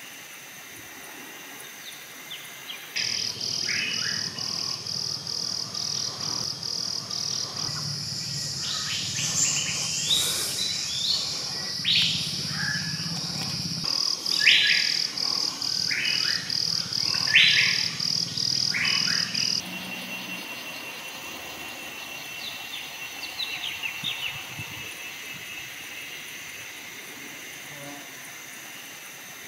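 Forest ambience: birds chirping and calling over a high-pitched insect buzz that pulses in a steady rhythm. The buzz starts abruptly a few seconds in and cuts off about two-thirds of the way through, leaving fainter bird calls.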